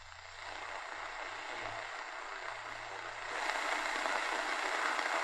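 Static hiss from a Realistic DX-350 portable radio tuned between medium wave stations, with a faint low hum. The hiss grows louder about three seconds in as the dial nears a weak distant AM station.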